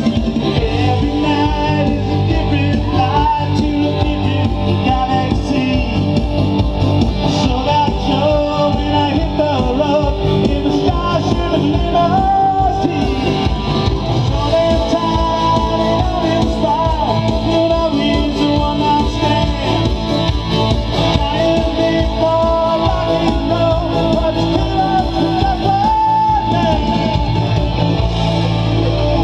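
Live rock band playing loudly: distorted electric guitars, bass and a drum kit keeping a steady beat.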